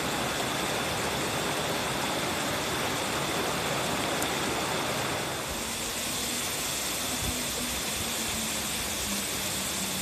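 Rushing water: a small cascade splashing over rocks, then, about halfway through, the steady rush of a 17-metre twin waterfall falling into a pool.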